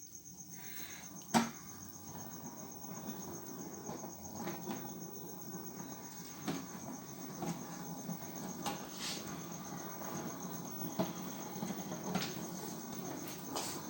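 Model train running on the layout's track: a steady low rumble of wheels, with irregular clicks as the wheels cross rail joints and points. A thin high pulsing tone runs underneath.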